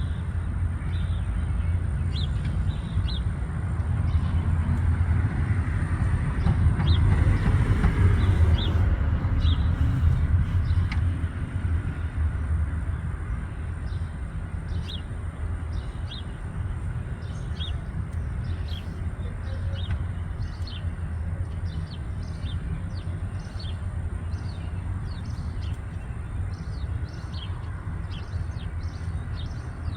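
Outdoor ambience: a steady low rumble that swells into a louder passing noise between about 4 and 12 seconds in, then settles. Over it a bird gives many short, high chirps, coming more often in the second half.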